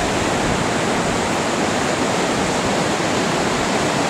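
A large mountain stream rushing, a steady, even sound of running water.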